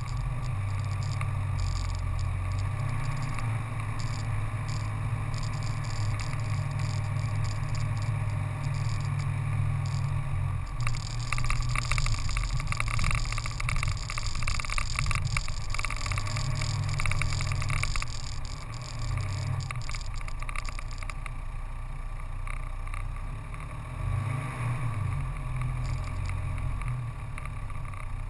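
Steady rumble of a vehicle riding along a dirt track, with wind and tyre noise on the handlebar-mounted microphone; the noise turns harsher and brighter for several seconds in the middle.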